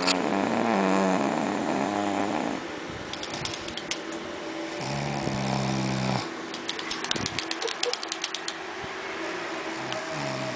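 A person snoring: one long snore at the start lasting about two and a half seconds, then a second, lower snore about five seconds in, with scattered light clicks between them.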